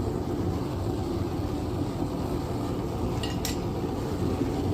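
Forge running with a steady low roar, and a single light metallic click about three and a half seconds in.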